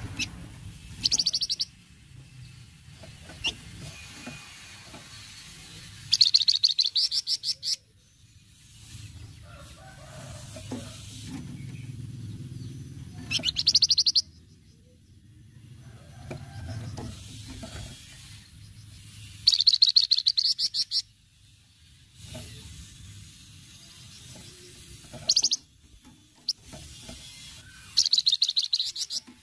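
A flamboyan (wergan jawa, Javan fulvetta) giving its 'ncretet' call: a fast, dry, rattling chatter repeated in about six bursts, each one to two seconds long, with short gaps between them.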